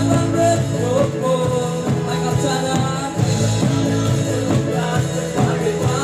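Live worship band playing an upbeat praise song through a PA system: a steady drum-kit beat under electric guitars, bass and keyboard, with voices singing.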